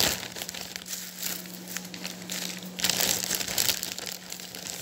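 A thin clear plastic bag crinkling as hands rummage in it, in irregular crackles that get busier about three seconds in.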